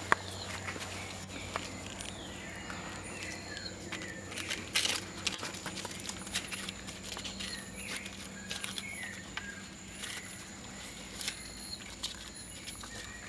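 Baird's tapir foraging at the fence: scattered rustles and soft clicks as it nuzzles the leaf litter and chews. Birds give repeated short falling chirps in the background.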